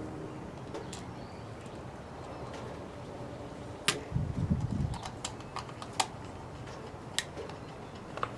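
Scattered sharp clicks and taps of small plastic parts as a solar LED spotlight's plastic housing is handled and fitted back together, with a short low rumble of handling near the middle.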